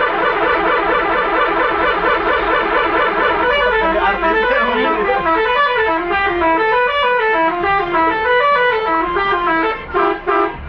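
Bus 'telolet' horn, a multi-tone musical air horn, playing a tune: a rapid warbling trill of notes, then a melody stepping up and down note by note, ending in a few short separate blasts.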